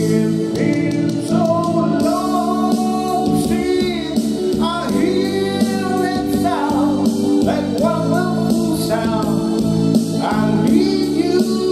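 A man singing into a microphone over recorded backing music with steady sustained chords, drawing out long held notes.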